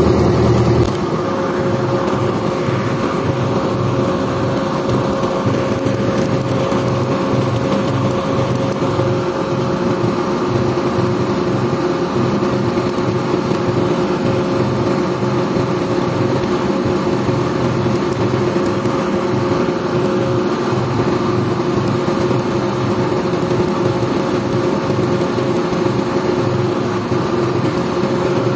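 Excavator's diesel engine idling steadily, with a constant hum carried over the low throb.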